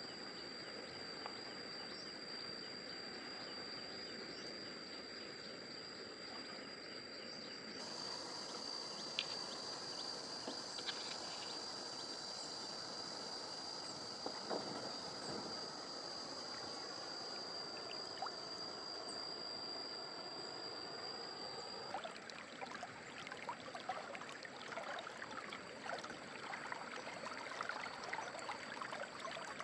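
Outdoor ambience of running stream water with a steady high-pitched insect drone; the drone stops about three quarters of the way through, after which irregular clicks and rustles join the water.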